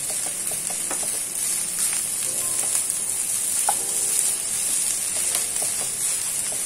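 Fried rice sizzling steadily in a nonstick frying pan as a wooden spatula stirs and scrapes through it, with frequent short knocks and scrapes of the spatula against the pan.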